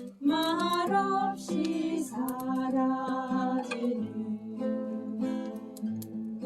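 Music: a song with singing over acoustic guitar.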